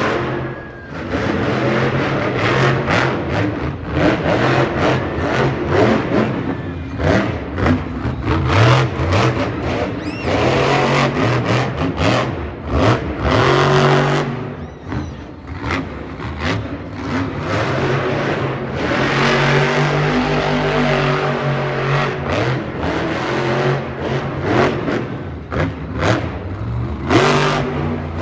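Monster truck engine revving hard, its pitch climbing and dropping again and again.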